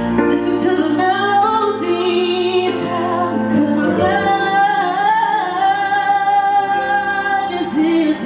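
A solo singer sings a ballad over a backing track, with a bending vocal run and then a long held, slightly wavering note in the second half.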